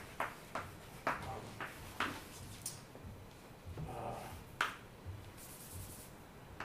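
Chalk tapping and scratching on a blackboard as words are written, in a series of short sharp ticks. A brief hissing rub near the end as part of the chalk writing is wiped off by hand.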